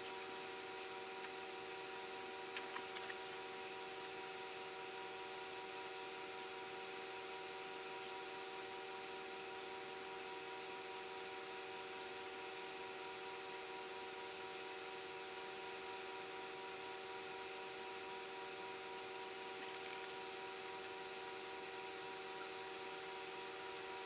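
Steady background hum made of several fixed tones under an even hiss, with a few faint clicks about two and a half seconds in.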